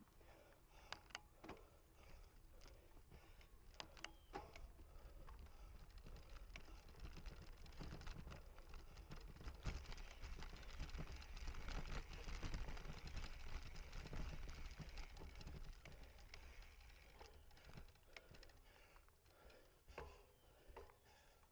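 Cyclocross bike ridden over rough ground: scattered sharp clicks and rattles from the bike, with a rush of tyre and wind noise that swells in the middle and eases near the end.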